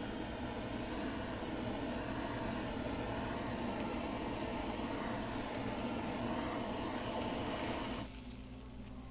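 Handheld kitchen blowtorch flame running with a steady hiss while it browns a cheese topping. It cuts off suddenly about a second before the end.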